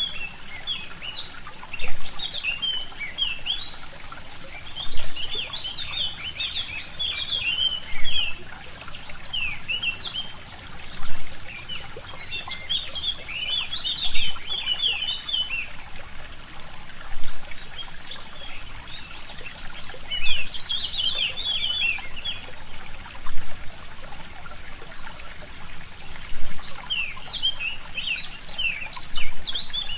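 Small forest stream trickling steadily, with brief surges in level about every three seconds. Songbirds chirp in quick bursts of high notes every few seconds.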